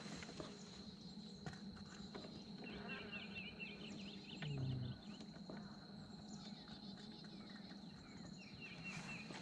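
Faint birdsong in short chirping phrases, about three seconds in and again near the end, over a steady high insect drone. A brief low sound about halfway through is the loudest moment.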